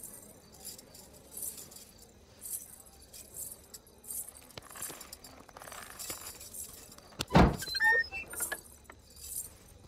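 Metal jewellery jingling in slow steps, a short jingle about once a second, with one loud thump about seven and a half seconds in, followed by a few brief squeaks.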